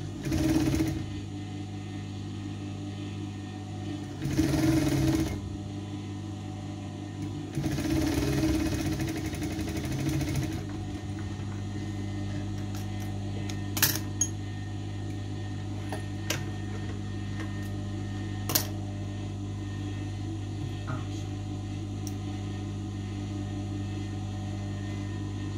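Electric sewing machine stitching in three short runs, the last and longest lasting about three seconds, followed by a few sharp clicks.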